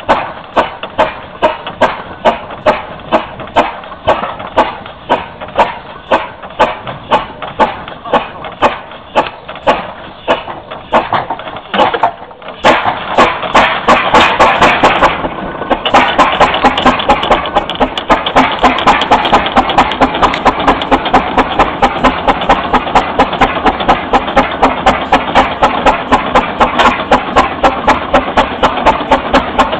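Garrett steam traction engine working under load towing a heavy trailer uphill, its exhaust beating sharply and regularly. The beats come faster in the second half, after a few seconds of louder rushing around the middle.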